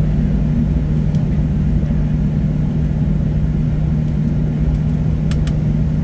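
Cabin drone of a Boeing 737-800 taxiing on its CFM56-7B engines at idle: a steady low rumble with a constant hum. A couple of faint clicks come near the end.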